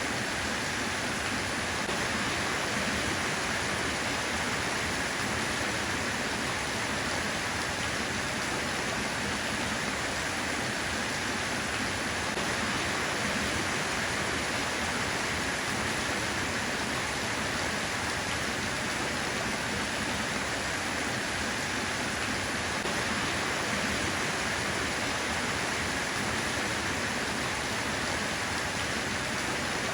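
Steady rain falling: a constant, even hiss with no breaks or distinct drops standing out.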